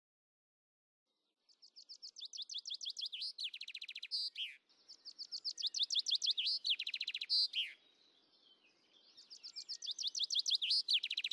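A songbird singing three phrases, each a fast run of high notes ending in a flourish; the song starts about a second and a half in.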